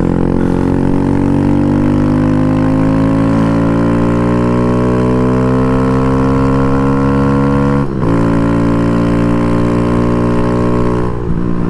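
Kawasaki Z125 Pro's 125 cc single-cylinder engine pulling under acceleration while riding, its pitch climbing slowly for about eight seconds, breaking briefly for an upshift, then pulling again before easing off near the end. Wind rush from riding lies under the engine.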